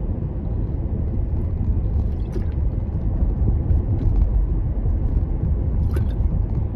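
Steady low rumble, with a couple of faint clicks.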